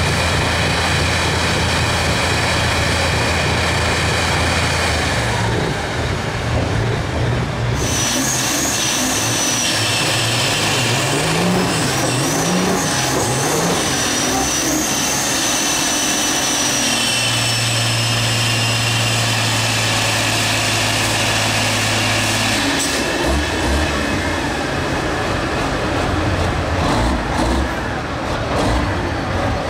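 Diesel semi-truck engines at high revs during burnout runs, the pitch rising and falling, then held steady for several seconds. A high wavering whine rides above the engines through the middle.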